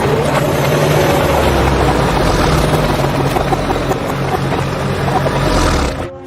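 Remote-control toy vehicle running: a steady mechanical whirr and hum that cuts off suddenly near the end.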